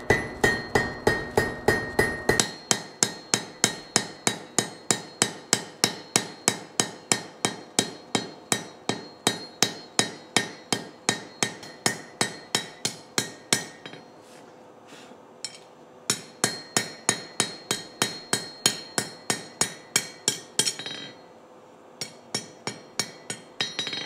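Hand hammer striking hot steel on an anvil, drawing a square-tapered bar into a round stem, about three blows a second, each with a metallic ring. The blows break off briefly midway, resume, then fall to a few lighter taps near the end.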